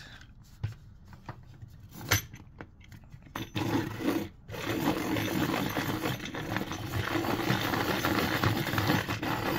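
Clicks as a coloured pencil is clamped into a Deli camera-shaped manual pencil sharpener. Then, about three and a half seconds in, the hand crank starts turning and the blades grind steadily into the pencil, with one brief pause soon after the grinding begins.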